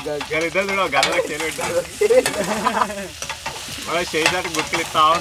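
A metal spatula stirring and scraping food as it fries in a steel pan on a gas stove, with sizzling and repeated scrapes of the spatula against the pan.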